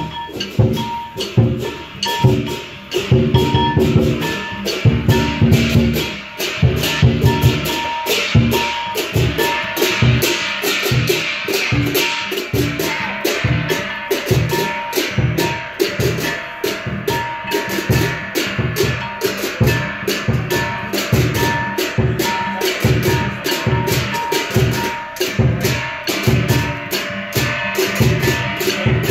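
Lion dance percussion: a Chinese lion drum with crashing cymbals, playing a steady driving beat of about three strikes a second, busier and less even in the first few seconds.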